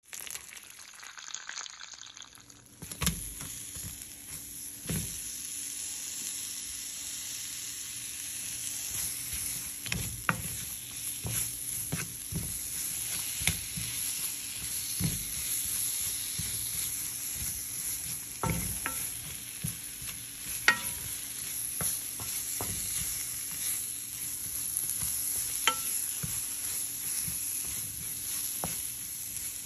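Sliced red onions frying in hot oil in a nonstick pan: a steady sizzle, with a wooden spatula now and then knocking and scraping against the pan as they are stirred. A quieter sizzle of curry leaves in oil comes first, and the frying grows louder about three seconds in.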